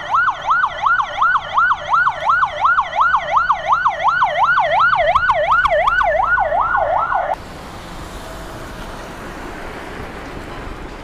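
Police vehicle siren wailing in fast, regular up-and-down sweeps, about three a second. It cuts off abruptly about seven seconds in, leaving a steady hiss of road noise.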